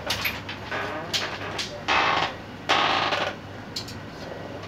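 Handling noise: a few sharp knocks, then two loud rustling bursts about two and three seconds in.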